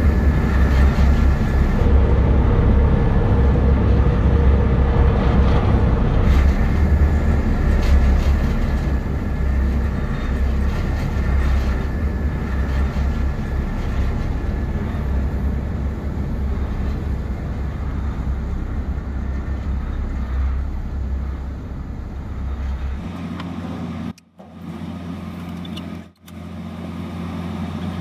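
Steady low engine rumble of a small river ferry, heard from inside a motorhome's cab on its deck. Near the end the deep rumble drops away and a lighter steady hum takes over, broken by two brief cutouts.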